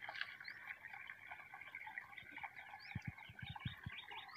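Faint outdoor ambience of small birds chirping and twittering, with a brief run of low thuds a little after three seconds in.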